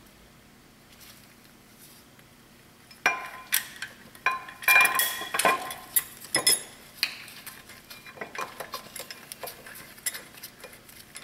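Steel flywheel of a Honda S2000 being set onto the crankshaft flange by hand: sharp metal clanks and clinks with a brief ring, loudest from about three to seven seconds in, then lighter clicks as it is settled into place.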